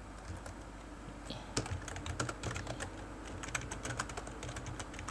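Typing on a computer keyboard: a quick, uneven run of key clicks that starts about a second and a half in.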